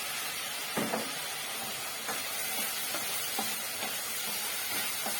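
Pork frying in a pan with a steady sizzling hiss, with occasional light knocks of a utensil against the pan.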